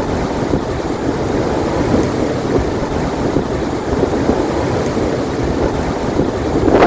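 Blizzard wind blowing hard across the microphone, a loud steady rushing rumble.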